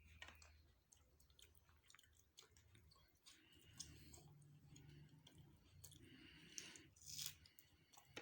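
Quiet, close-miked chewing of chicken and paratha, with many small wet mouth clicks and smacks.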